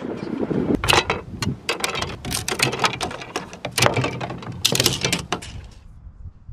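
Bamboo garden stakes being snipped with hand pruners and clacking together: a run of sharp clicks and knocks for about five seconds, which dies away near the end.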